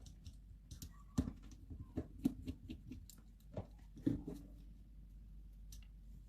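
Small scattered clicks and taps of a screwdriver and small parts being handled while screws are taken out of the zoom lens unit of a Canon PowerShot SX730 compact camera, with the sharpest few about a second in, around two seconds in and about four seconds in.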